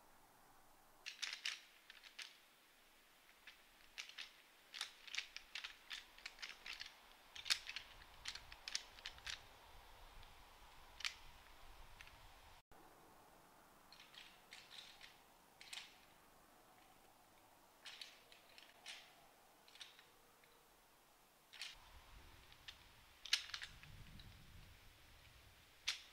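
Faint, irregular sharp ticks and clicks in scattered clusters, the loudest about a third of the way in and near the end.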